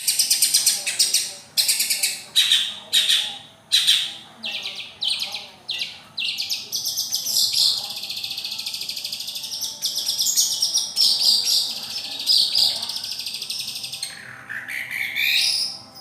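Long-tailed shrike (cendet/pentet) singing. A run of sharp, high notes comes about twice a second, then turns into a fast, continuous chattering warble, and a swooping note that dips and then climbs steeply comes near the end.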